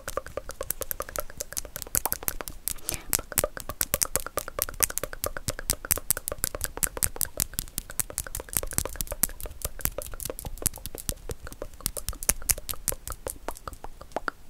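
Fingers and long fingernails clicking and tapping against each other close to the microphone, a rapid irregular patter of about eight to ten sharp clicks a second.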